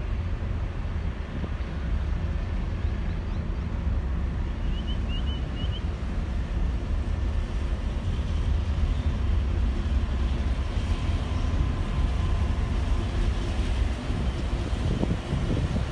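Diesel locomotives hauling a cement freight train as it approaches, a steady low engine rumble growing slowly louder. A few short high chirps about five seconds in.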